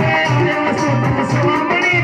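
Live Hindi devotional song (bhajan): a man singing over a double-headed dhol drum beaten with a stick in a steady rhythm of about two strokes a second, with shaken percussion.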